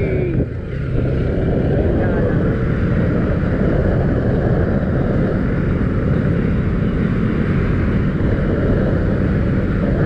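Bajaj Pulsar 200NS single-cylinder engine running at road speed under way, heard from the rider's seat along with wind noise. It dips briefly about half a second in, then runs on steadily.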